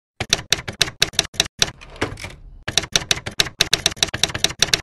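Typewriter keys striking in a quick run, several strikes a second, with a short pause about halfway through.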